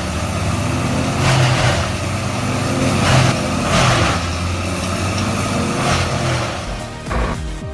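Wood chipper running: a steady engine drone with about four surges of grinding noise as wood is chewed through. It starts abruptly.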